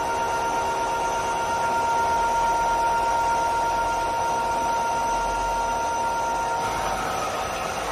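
CNC lathe cutting a spinning metal bar with its turret tooling, a steady whine over the machining noise. The whine stops about seven seconds in.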